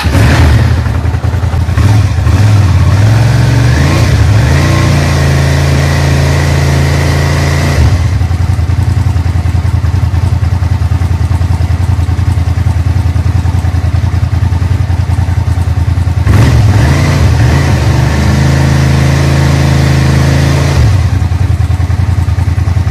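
Suzuki SV650's 645 cc V-twin engine running just after a fresh oil and filter change, idling with the revs raised and held twice for a few seconds, dropping back to idle each time.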